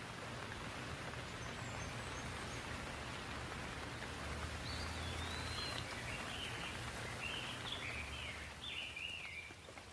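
Steady hiss of falling rain, with a bird singing quick, warbling chirps from about halfway through.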